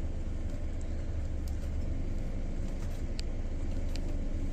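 Steady low rumble of a vehicle engine running, with a few faint clicks.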